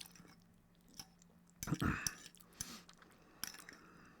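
A person chewing food close to the microphone, with wet mouth clicks and smacks and a louder bite about two seconds in.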